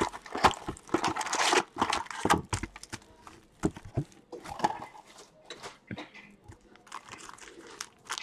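A cardboard trading-card hobby box being opened and its foil card packs handled: dense crinkling and tearing in the first two seconds, then scattered clicks and rustles.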